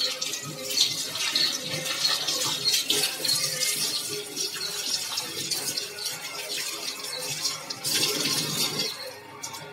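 Tap water running into a kitchen sink while chicken pieces are rubbed and rinsed by hand under the stream, with small splashes throughout. The flow stops shortly before the end.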